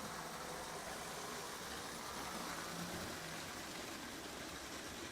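Marx tinplate toy train locomotive running steadily around the track, its electric motor and wheels making an even whirring rattle with a low hum underneath.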